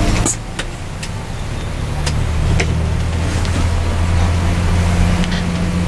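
Engine of a tour coach running steadily while driving in heavy rain, heard from inside: a low steady drone under a constant hiss, with scattered sharp ticks. The level drops suddenly about a third of a second in, then rises slowly again.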